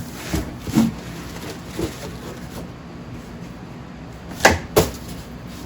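Knocks and rustles of a cardboard box being handled while a sewing machine is unpacked, with two loud knocks about half a second apart a little after four seconds in.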